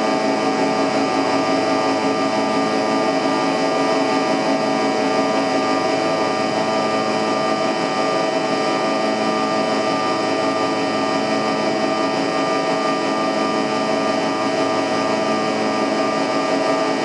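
Steady jet engine and airflow noise heard inside an airliner cabin during the climb after takeoff: a loud, even hum with several steady whining tones layered over it.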